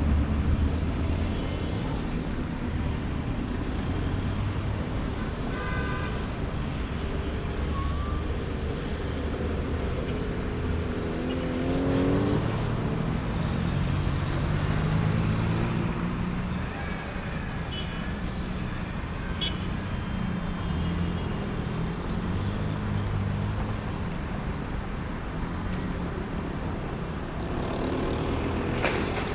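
City street traffic: a steady rumble of car engines and tyres, with a vehicle accelerating past at about twelve seconds and another near the end.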